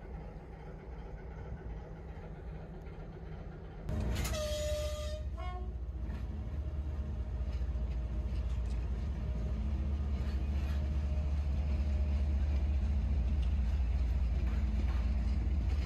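Freight train hauled by a twin-section diesel locomotive: one horn blast about a second long, then the steady low rumble of the diesel engines and the wagons rolling past, growing slightly louder. A few seconds of quieter outdoor background come before it.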